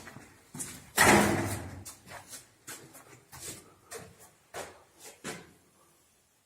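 A loud knock about a second in that rings on in a bare room, followed by a string of lighter knocks and clicks at uneven intervals.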